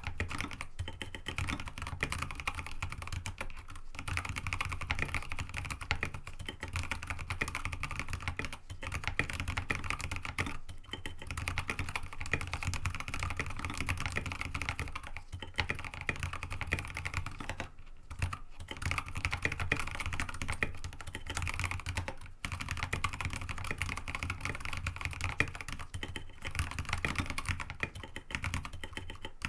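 Fast, continuous typing on a mechanical keyboard with Kailh Box Ancient Gray tactile switches, MA-profile keycaps and an aluminium plate, dense key clacks with a few short pauses between bursts.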